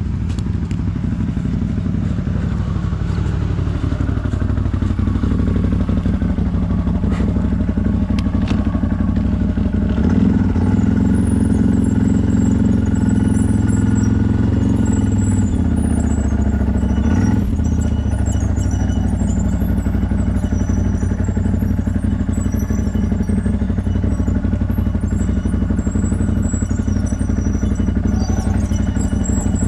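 CFMoto 1000 ATV's V-twin engine running as the machine is ridden. The revs fall over the first few seconds and then hold low and steady, with a few brief knocks from the machine.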